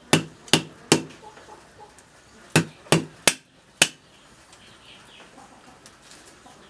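A cleaver chopping on a thick wooden chopping block: three sharp chops a little under half a second apart, a pause of over a second, then four more chops.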